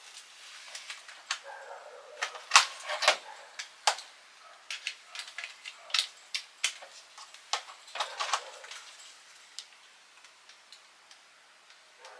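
Irregular sharp clicks and taps of a plastic smart plug being handled and pushed into a wall socket. The loudest clicks come a few seconds in, and they thin out near the end.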